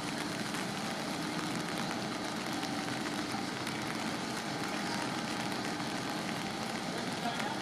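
Fire engine idling: a steady low engine hum under an even hiss.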